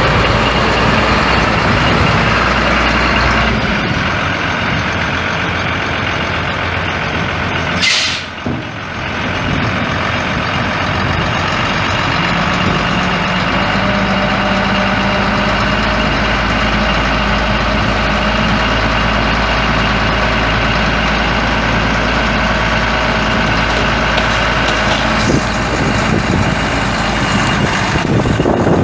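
Cummins ISC 5.9-litre straight-six turbo diesel of a 1997 Ford LT8000 dump truck running steadily, with a short hiss of air from the truck's air system about eight seconds in.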